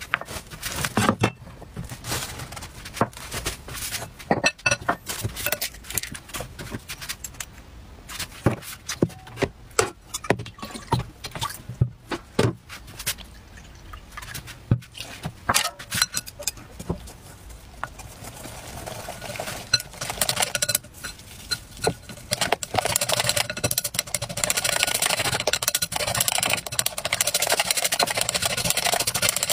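Clinks and knocks of a glass mixing bowl and small dishes being set down and ingredients added. From about two-thirds in, chopsticks beat batter against the sides of the glass bowl in a dense, rapid clatter.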